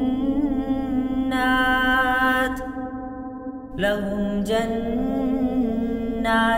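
A male reciter chanting the Quran in melodic tajweed style, drawing out long held notes with slow, ornamented turns in pitch. About halfway through, the voice breaks off for about a second, then resumes on a new held note.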